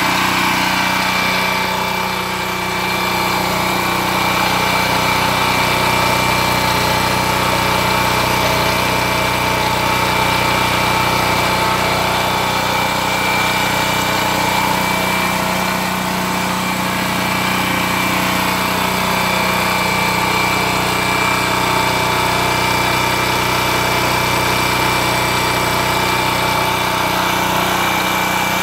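Generac GP3300 portable generator's single-cylinder gasoline engine running steadily, heard up close: an even, unbroken engine hum with a steady pitch.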